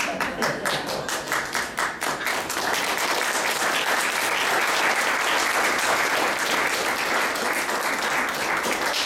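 Audience applauding: separate hand claps at first, filling out into steady applause from about two seconds in.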